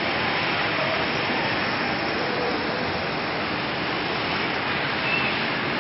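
Steady rushing hiss of water from fountain jets spraying up and splashing back down into a pond.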